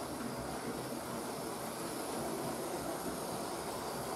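Model railway locomotive running on track: a steady whir from its electric motor, with the wheels rolling along the rails.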